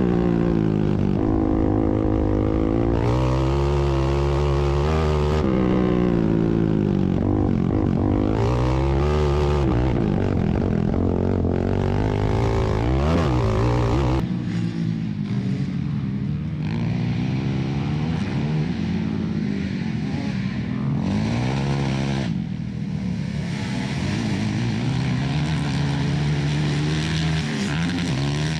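Several racing ATV engines revving up and down over one another, their pitch rising and falling as the riders throttle on and off through the turns; the sound drops a little about halfway through.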